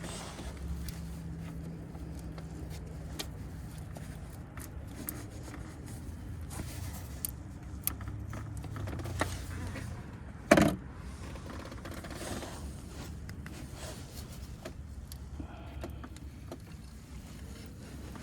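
Small metallic clicks and scrapes, like tools or parts being handled, with one sharp knock about ten seconds in, over a steady low hum.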